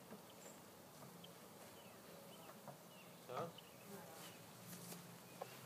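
Faint, steady buzzing of honeybees flying about a top bar hive just after being installed, with a few soft clicks.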